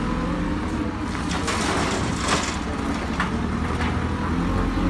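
Heavy diesel vehicle engine idling with a steady low rumble, a few short clicks or knocks over it.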